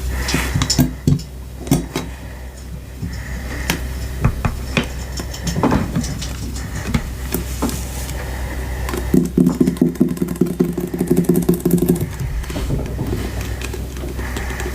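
Soft, squishy slime or putty being squeezed and pressed by hand, giving scattered sticky clicks and pops, with a run of rapid buzzing squelches from about nine to twelve seconds in. A steady low hum runs underneath.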